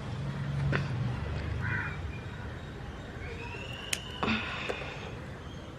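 A few light snaps and clicks as ripe chillies are picked off the plant by hand, with a bird calling once in the background about three seconds in.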